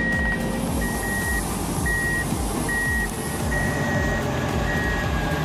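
A vehicle reversing alarm beeping about once a second over the low rumble of heavy diesel engines.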